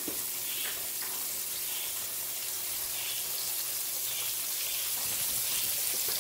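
Flour-dredged quail frying in a pan of hot oil: a steady sizzle with small crackles and pops.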